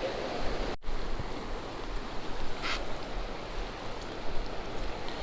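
Steady rushing noise of wind and rain, with wind buffeting the microphone, broken by a brief gap of silence about a second in.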